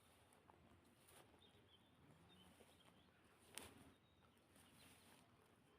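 Near silence: faint outdoor rural ambience with a few faint bird chirps and a single soft click a little past halfway.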